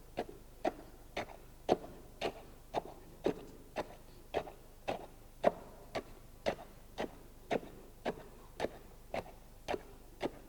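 Rod tamping fresh concrete in a cube mould to compact the first layer: a steady run of dull knocks, about two a second, some twenty strokes, driving out air bubbles.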